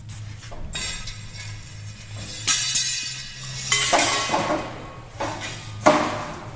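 Metal shipping-crate parts clanking and rattling as the crate is pulled apart, in several separate bursts about a second or so apart, each ringing briefly, over steady background music.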